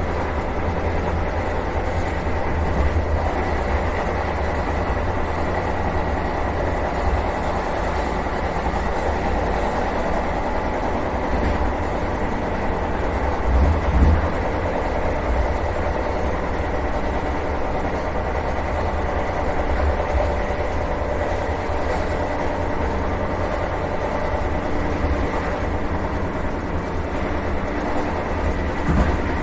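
Vande Bharat Express electric multiple unit running at speed, heard from inside the driver's cab: a steady low rumble with a faint constant high tone. One brief louder knock comes about halfway through.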